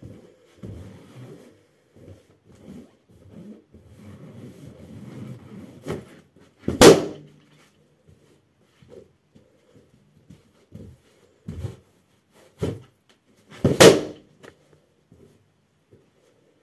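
Two latex party balloons burst under a socked foot, each a sharp pop, the first about seven seconds in and the second about seven seconds later. Before the first pop, the balloon's rubber rustles and creaks as the foot presses down on it. A few soft knocks of footsteps on carpet come before the second pop.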